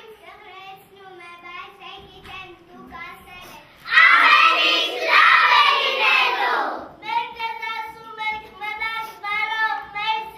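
A group of young children singing together, with a much louder passage from about four seconds in that lasts about three seconds before the singing drops back down.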